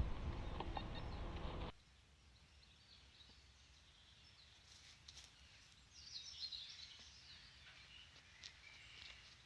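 Low rumbling noise, like wind on a microphone, that cuts off abruptly under two seconds in, leaving quiet outdoor ambience with faint bird chirps about six to seven seconds in.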